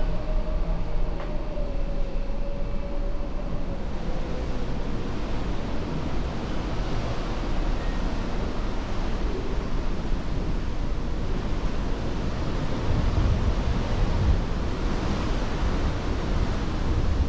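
Steady rush of wind and sea along a moving ship at sea, with wind buffeting the microphone, heavier in the last few seconds. A faint steady hum, slowly falling in pitch, sounds under it for the first few seconds.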